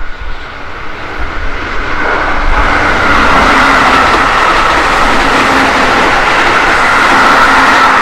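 Keihan 13000 series electric commuter train passing close by, its running noise growing about two seconds in and staying loud, with a steady high whine over the rumble.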